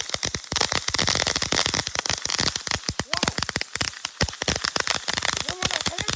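Consumer firework going off, crackling as a dense, rapid string of sharp pops.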